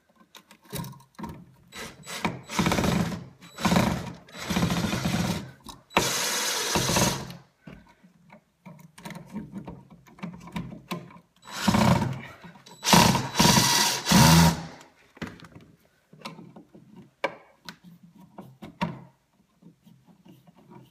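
Power drill-driver running in short bursts, driving the outlet's mounting screws into the electrical box, with small clicks and handling clatter between the bursts.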